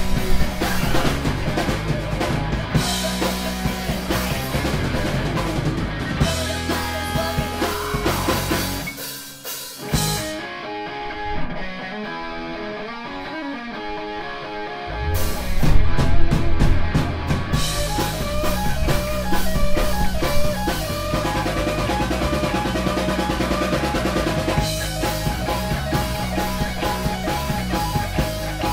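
Live rock band playing with distorted electric guitars, bass and a full drum kit. About ten seconds in, the drums and cymbals drop out for a few seconds while the guitars carry on. Then the drums crash back in with a run of hard hits, the loudest point, and the full band plays on.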